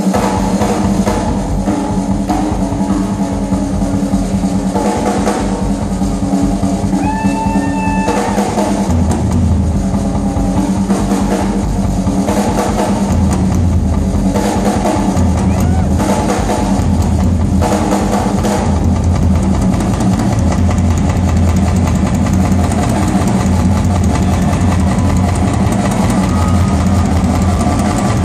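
Live rock drum solo on a full drum kit: fast, continuous playing on toms, snare, cymbals and bass drum. From about nine seconds in, a heavy low rumble pulses underneath.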